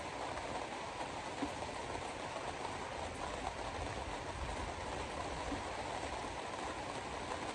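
Steady tyre and road noise heard from inside a moving car, with a low rumble swelling about halfway through as an oncoming pickup truck passes.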